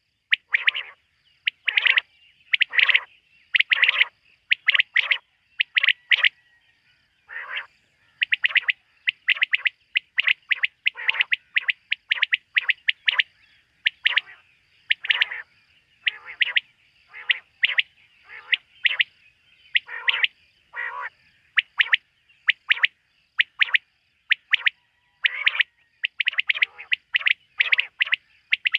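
Quail calling at night: a quick, repeated series of short, sharp notes coming in clusters of several, with brief pauses between the clusters, going on throughout.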